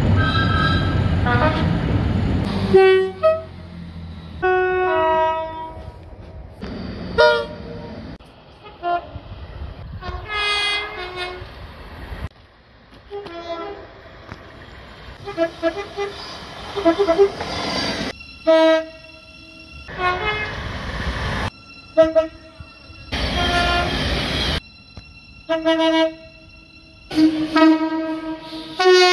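British train horns sounding again and again: many separate blasts, short toots and longer notes, changing between a lower and a higher pitch. The rumble of a passing train runs under the start and comes back about three-quarters of the way through.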